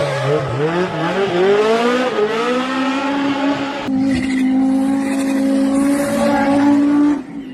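Rally car engine revving hard. Its pitch swings up and down over the first few seconds, then it holds a steady high note that climbs slightly and cuts off abruptly near the end.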